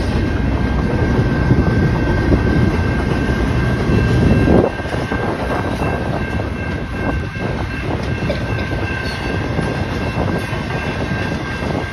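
Double-stack intermodal container cars of a Norfolk Southern freight train rolling steadily past: a continuous rumble and clatter of wheels on rail. A thin steady high tone runs through it. The sound is loudest just before halfway, then a little quieter.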